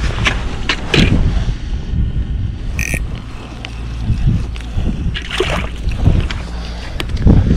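Steady low rumble of wind buffeting an action camera's microphone, with scattered clicks and crunches from gear being handled on the ice. About three seconds in there is a brief high ping.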